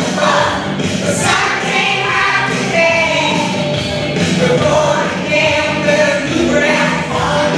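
A children's choir singing a song in unison over instrumental accompaniment.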